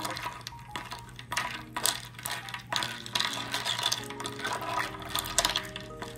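Ice cubes clinking and rattling against a glass mug as an iced milk drink is stirred with a spoon: a quick, irregular run of clinks.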